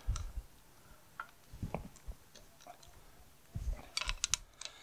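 Ratchet wrench clicking while undoing bolts on a tractor final drive housing, with a few dull knocks and a quick run of clicks near the end.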